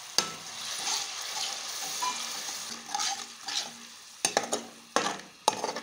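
Onions, whole spices and ginger-garlic paste frying in hot oil in a metal karahi. The pan sizzles up sharply just after the start as a splash of water hits the oil, then keeps sizzling while a metal spoon stirs. A few sharp clicks of the spoon against the pan come near the end.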